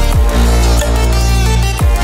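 Background electronic dance music with a steady heavy bass and deep kick drums.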